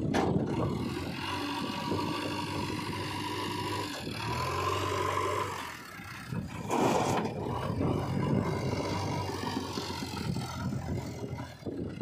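JCB 3DX backhoe loader's diesel engine running while working the front loader, its pitch rising about four seconds in. About seven seconds in there is a short rush of soil tipping from the raised bucket into a steel tractor trolley.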